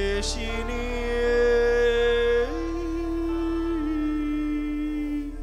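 Slow worship music on a Yamaha MO8 synthesizer: sustained pad chords over a steady low drone, with held notes that move to a new chord about halfway through. A brief high shimmer sounds just after the start.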